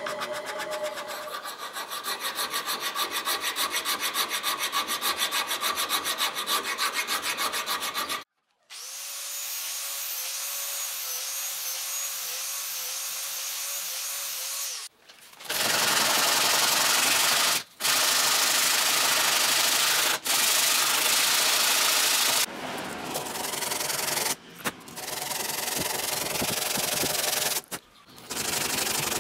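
Fast, rhythmic hand-file strokes on a wooden knife handle for about eight seconds. After a sudden break, an angle grinder with an abrasive disc runs against the wood, its whine wavering with pressure. It then grinds louder in several passes with short pauses.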